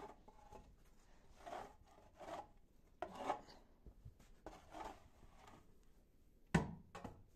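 Faint irregular scuffs and rustles of someone moving about a barn floor strewn with straw and dung, with one louder knock about six and a half seconds in.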